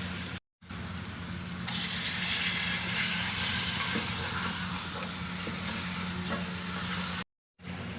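Chicken and spices frying in hot oil in a karahi, sizzling steadily while being stirred; the sizzle grows louder about two seconds in, as chopped tomatoes go into the pan. The sound drops out briefly twice.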